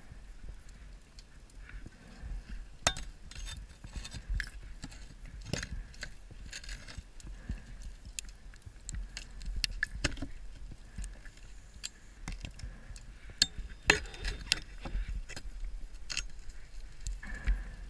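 Underwater sound inside a shipwreck during a scuba dive: irregular sharp clicks and knocks over a steady low rumble, with a louder noisy gush near the end.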